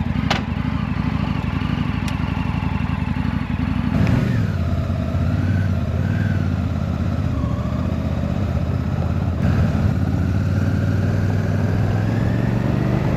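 Motorcycle engine running steadily. About four seconds in the note changes, and the engine pitch rises and dips as the bike is ridden under throttle.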